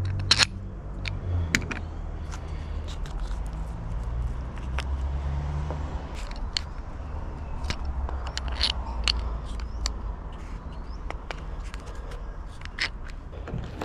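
Scattered light clicks, taps and knocks of small accessory parts being handled and fitted to the boat, over a steady low rumble.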